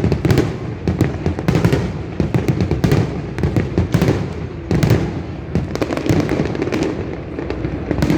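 Aerial fireworks bursting in rapid succession, a dense run of sharp cracks and bangs over a continuous low rumble.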